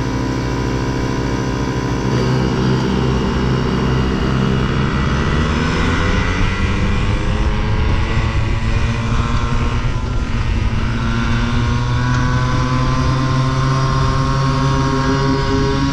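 Small flat-track race motorcycle's engine, heard from on board, held at steady revs and then accelerating away from the start about two seconds in, its pitch climbing. It then runs at high, changing revs through the turn and down the straight.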